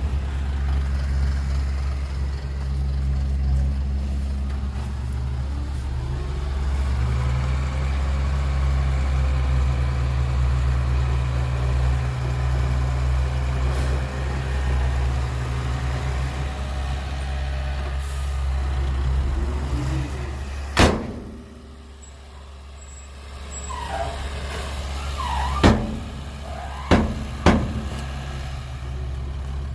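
Heavy diesel earthmoving machinery running steadily with a deep engine drone. About 21 seconds in a sharp knock sounds and the engine note drops, then near the end come three more sharp knocks with brief squeaking glides.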